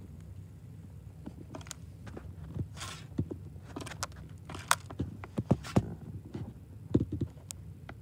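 A small bird pecking and rummaging through black sunflower seeds in a window feeder, making irregular clicks and taps on the seeds and the feeder, a few of them sharp. A steady low hum runs underneath.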